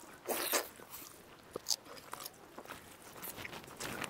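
Close-up eating sounds: biting and chewing food, with scattered small wet clicks from fingers mixing pakhala (rice in water) in a bowl. The loudest burst comes just after the start; lighter clicks follow.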